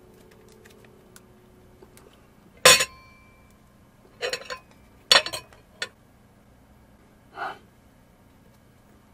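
Handling sounds on a plate: a sharp clink that rings briefly, then a cluster of short clatters, as a toy stag beetle and a fork are moved about on a paper plate. A short breathy sound follows near the end.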